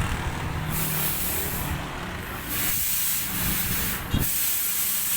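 Repeated bursts of loud hissing, switching on and off several times over a low steady hum.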